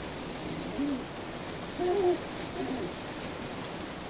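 Steady rain hiss with a dove cooing over it: a short low coo about a second in, a louder two-note coo around two seconds in, and a softer one just after.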